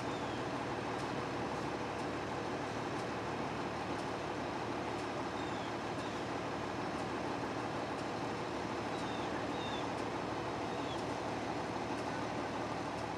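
Steady rumble of a running vehicle engine with a low hum, unchanging throughout. A few faint, short high chirps come near the middle and end.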